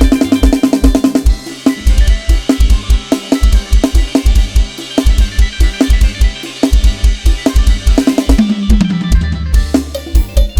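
Addictive Drums 2 virtual drum kit playing a fast, driving lam sing groove: a steady kick-drum pulse with snare and rimshot hits under a cymbal wash. It opens with a quick run of drum hits, and a low tone slides down near the end.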